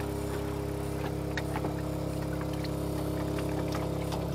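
Small motorboat's engine running steadily at constant speed, with a few light ticks over it.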